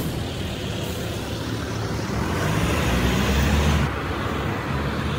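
Road traffic going by on a city street, a steady rush of cars and tyres, with a low vehicle rumble swelling about halfway through and dropping away suddenly near the end.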